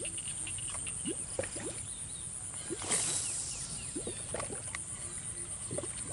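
Waterside outdoor ambience: a steady, high, pulsing insect-like buzz with scattered short rising chirps, and a brief rushing, splash-like noise about three seconds in.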